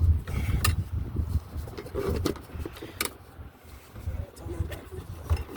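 Sharp clicks and clinks of hand tools being handled as pliers are picked out, over an uneven low rumble.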